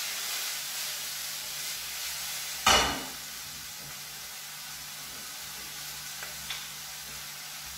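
Mushrooms and vegetables sizzling in a frying pan as it is tossed, then one loud clank about two and a half seconds in as the pan goes back down on the gas hob's grate. After that the sizzle goes on more quietly, with two light clicks near the end.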